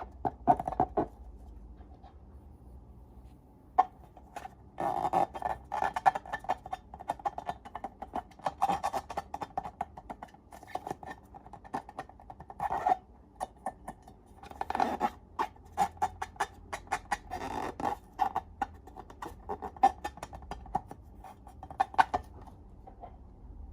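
Hands squishing and poking slime, making runs of quick sticky clicks and pops that come in clusters, with short lulls between.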